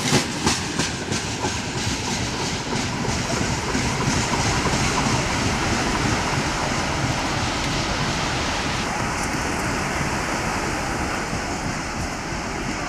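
Freight train rolling past, its wheels clacking over rail joints for the first few seconds, then a steady rolling rumble.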